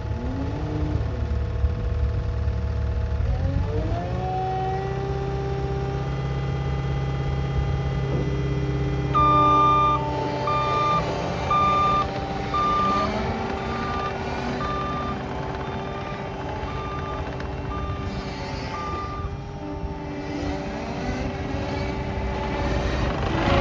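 CAT 299D2XHP skid steer's diesel engine running, its pitch rising a few seconds in as it is throttled up. From about nine seconds in, its backup alarm beeps about once a second for some ten seconds as it reverses.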